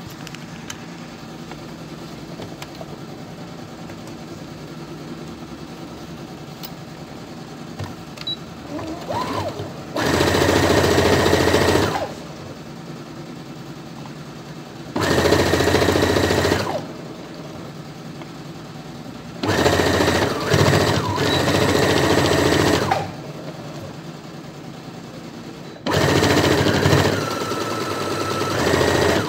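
Electric domestic sewing machine stitching through stiff cotton fabric in four short runs, with pauses between them. It is quiet for the first ten seconds or so before the first run.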